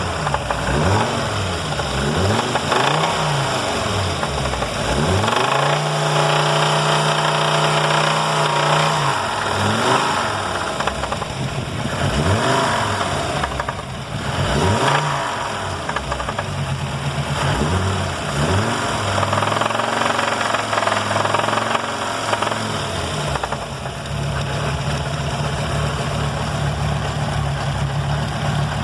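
Fiat Marea 2.4 inline five-cylinder engine revved in repeated throttle blips, held at raised revs for a few seconds and blipped again, then settling to a steady idle near the end. The car has an unwanted engine noise.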